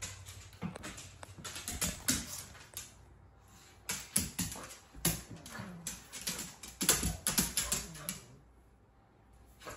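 A dog's claws clicking and scuffling on a hardwood floor in irregular runs as it plays with a plush toy, busiest in the second half and falling away just before the end.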